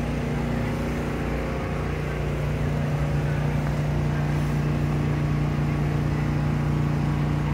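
A steady low motor hum, like an idling engine, holding one pitch over city street noise. It grows a little louder about two and a half seconds in.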